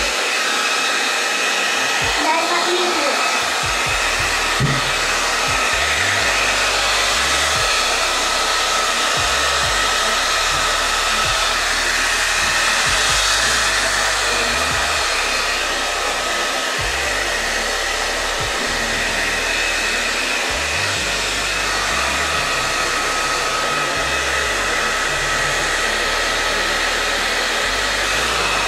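Handheld blow dryer running steadily on a wet puppy's coat: an even rush of air with a faint steady whine.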